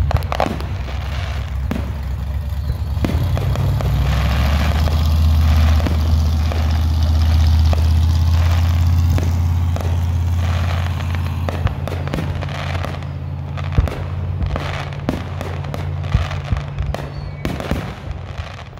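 Aerial fireworks bursting and crackling, with scattered bangs that come thicker in the second half. Under them runs a steady low engine hum from an idling vehicle, which fades near the end.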